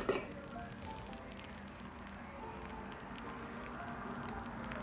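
Faint crackling sizzle of room-temperature sugar syrup soaking into hot, freshly baked baklava, many fine ticks, under soft background music.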